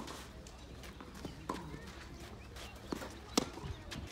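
Tennis rally on a clay court: racket strikes on the ball, a fainter hit from the far end about a second and a half in and a loud hit close by about three and a half seconds in, with players' footsteps on the clay between them.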